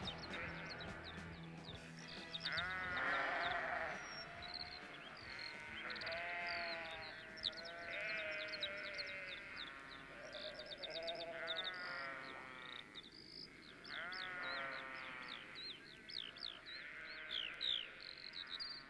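Sheep bleating again and again while birds chirp above them in quick falling notes: the sound effects that close a rock album track. The last of the band's music fades out about a second in.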